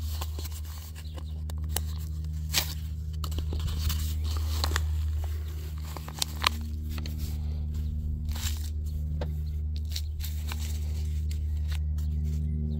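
Scattered crackles, scrapes and clicks of a plastic plant pot being pressed into and handled in loose potting soil, over a steady low hum.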